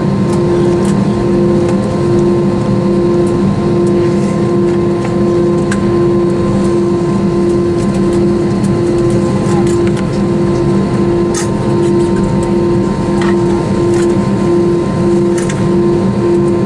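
Cabin noise of an Airbus A321 taxiing, its IAE V2500 turbofans at idle: a steady drone with a hum that throbs in a regular beat, and a few light clicks from the cabin in the second half.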